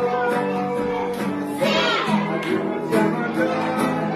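Music: children singing together with instrumental accompaniment.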